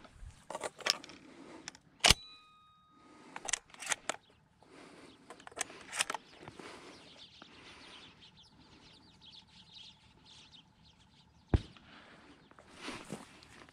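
Footsteps and rustling through dry grass and weeds, broken by a few sharp clicks and knocks. The loudest click comes about two seconds in and leaves a brief ringing tone.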